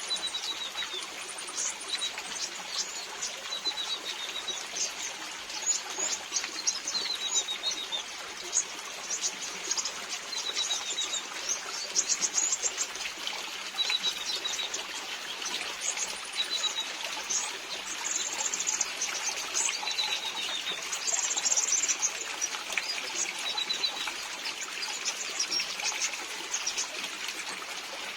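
Brown-throated sunbirds giving short, falling chirps every couple of seconds, with quick high ticking calls, over the steady patter and trickle of rain.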